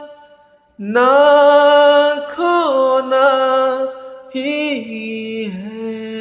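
A man singing long drawn-out notes of a slow Hindi film song, sliding between pitches. The voice comes in just under a second in after a short pause and breaks off briefly about four seconds in.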